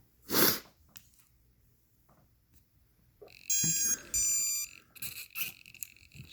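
A short noisy rush about half a second in, then two high-pitched electronic beeps of about half a second each, as from the robot's brushless speed controller sounding its tones through the motor at power-up.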